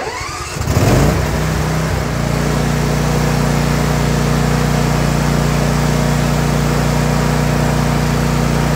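Troy-Bilt zero-turn mower's 24 hp Briggs & Stratton V-twin engine cranked by its electric starter on choke. It catches about a second in, rises in speed and settles into a steady run. The fuel pump is working again on its new vacuum line.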